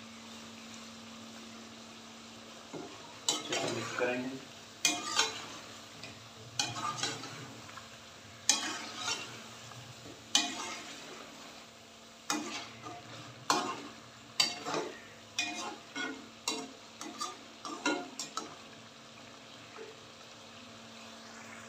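Chicken and whole green chillies frying in a metal pot, a steady low sizzle, while a metal spatula stirs and scrapes against the pot, about one or two strokes a second, from about three seconds in until near the end. This is the bhuna stage of a karahi, the meat being fried down in its masala.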